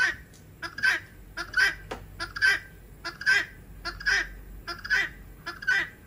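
Guineafowl calling in a steady, repeated rhythm: harsh two-part calls, a short note then a louder one, about once every 0.8 seconds.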